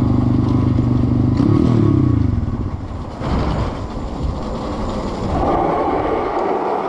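Dirt bike engine running under way. Its revs rise and then fall off about two seconds in, it picks up again, and it drops away sharply at the very end as the bike slows.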